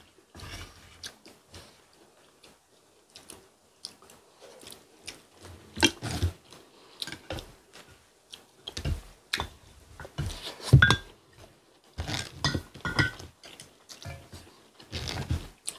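Close-miked eating sounds: chewing and mouth sounds, with irregular clicks and taps of chopsticks and spoons against ceramic bowls and a pot.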